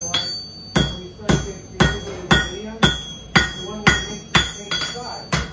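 Blacksmith's hammer striking work on an anvil in a steady rhythm, about two blows a second, each blow leaving a short metallic ring.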